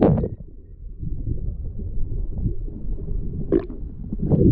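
Muffled underwater rumble of water moving around a submerged phone's microphone, with a few short sharp knocks or splashes, one at the start and one about three and a half seconds in.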